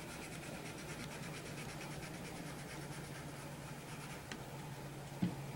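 Colored pencil shading on paper in quick, even back-and-forth strokes, with a faint click partway through and a short, louder knock near the end.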